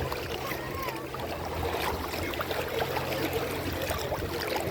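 Shallow water trickling and lapping, with many small clicks and scrapes scattered throughout.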